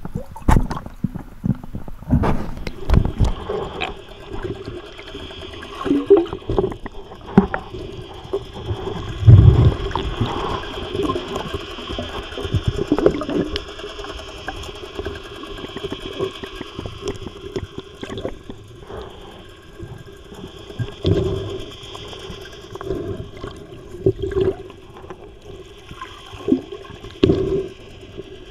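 Underwater water sounds heard through a dive camera's housing: water gurgling and rushing, with irregular knocks and thumps as a diver handles a speared bluefin tuna, over a steady hum. A heavy, deep thump about nine seconds in is the loudest.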